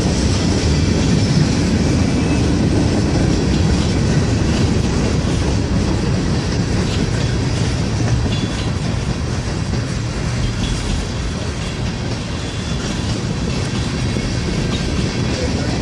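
Freight cars of a mixed freight train rolling past: covered hoppers, tank cars and refrigerated boxcars, their steel wheels making a steady noise on the rails.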